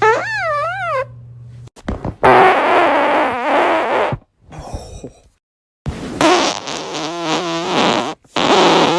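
A series of human farts, one after another. The first is short and wavers up and down in pitch. The later ones are longer, louder and raspy, with a rapid flutter, and there is a brief silence between some of them.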